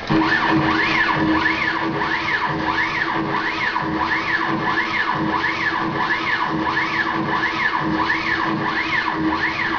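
Stepper motor driving a 9x20 CNC lathe conversion's Z-axis lead screw back and forth on repeated plus-or-minus 10 mm test moves: a whine that rises and falls with each move, about three moves every two seconds, over a steady hum. The carriage returns to within half a thousandth of an inch of zero, so the stepper is not losing steps.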